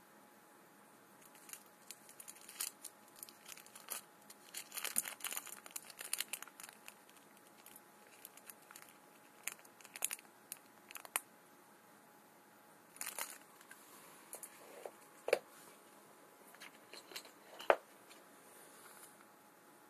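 Clear plastic wrapping around two phone batteries crinkling and tearing in bursts as they are handled, with a few sharp clicks and knocks; the loudest click comes near the end.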